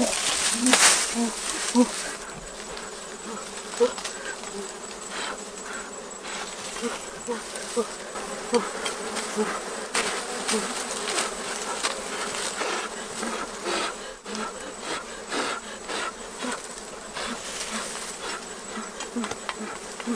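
Swarm of honeybees buzzing around a freshly cut wild honeycomb, single bees droning past close by again and again, with occasional sharp knocks and clicks from handling the comb.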